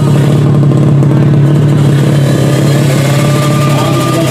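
Engine of a 130cc four-stroke underbone drag bike running loudly at the start line at a steady pitch, with a second, rising engine note coming in about halfway through.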